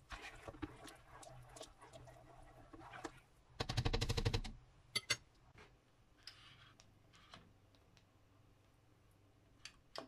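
A plastic spoon scrapes and clicks against a metal pot while stirring a thick sauce, over a low steady hum. About four seconds in comes a loud, fast rattle lasting under a second, followed by a few isolated clicks as a cooker knob is handled.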